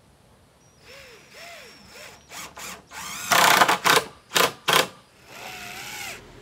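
Cordless drill driving screws into pressure-treated boards: short trigger pulls, the motor whine rising and falling in pitch, then several louder bursts in the middle as the screws go in, and a last short whine near the end.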